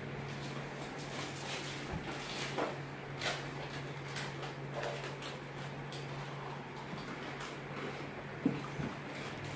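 Quiet eating sounds of a meal eaten by hand: soft chewing and fingers working rice and fish on a plate, with a few small clicks and smacks over a steady low hum.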